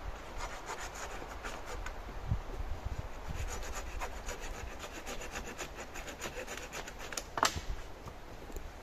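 Hand saw cutting through wood in a quick run of strokes, with one sharper knock about seven seconds in.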